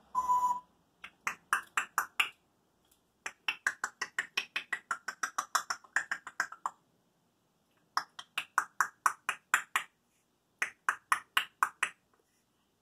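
African grey parrot making a short whistle-like tone, then rapid clicking sounds, about six clicks a second, in four runs separated by short pauses.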